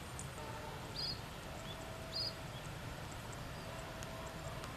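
A small bird giving short, high chirps, two of them about a second apart, over a low steady rumble.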